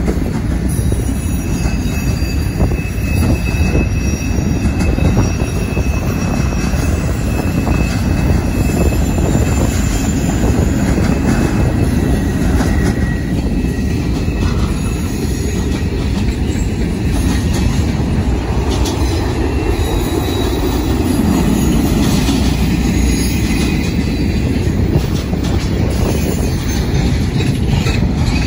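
Union Pacific freight train of boxcars rolling past: a steady rumble of steel wheels on rail with repeated clacking and thin, high wheel squeals that come and go.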